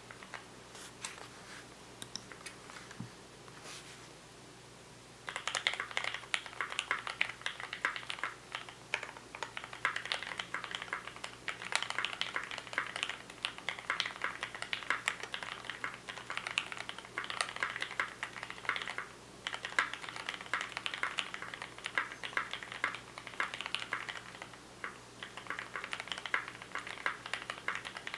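Typing on a 60% custom mechanical keyboard with Gateron Black linear switches, a brass plate and PBT keycaps. A few scattered keystrokes, then fast continuous typing from about five seconds in, with a brief pause about two-thirds of the way through.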